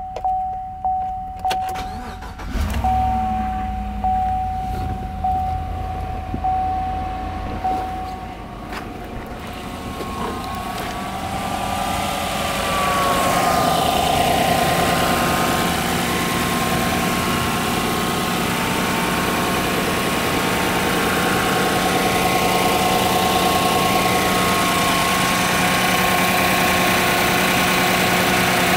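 A 2014 GMC Sierra's 5.3-litre L83 Vortec V8 starts about two and a half seconds in and then idles steadily. It is louder from about twelve seconds on, heard over the open engine bay. For the first eight seconds a dashboard warning chime repeats about once a second.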